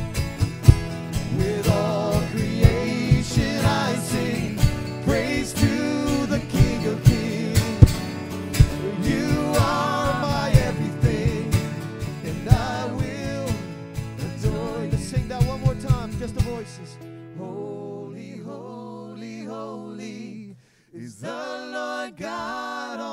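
Live worship band playing with a steady beat and singing; about sixteen seconds in the beat drops out, leaving a held low note under the sung melody as the song moves into a quiet passage.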